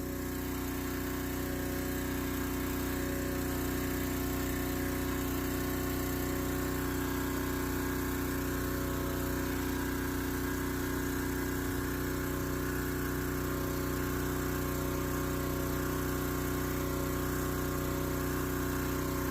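Small engine of a pressure washer converted to a sewer jetter, running steadily under load while its hose jets through a paper clog in a sewer main line.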